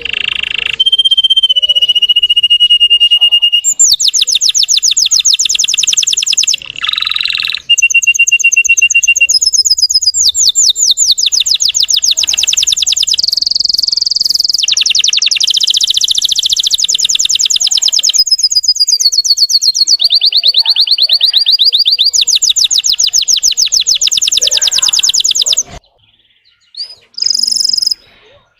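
Russian canary singing a loud, high-pitched song of fast rolling trills, many notes a second, alternating with held whistled notes. The song breaks off about 26 seconds in, with one short phrase just before the end.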